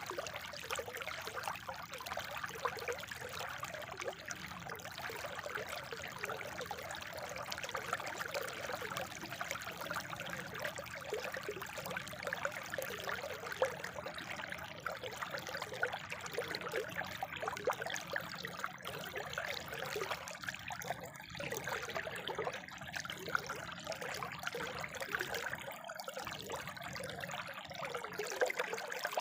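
Spring water trickling and burbling steadily over stones.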